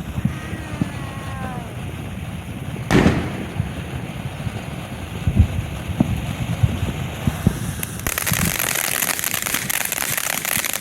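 Consumer fireworks going off: one loud bang about three seconds in, a few scattered pops, then a dense, steady crackling from about eight seconds on.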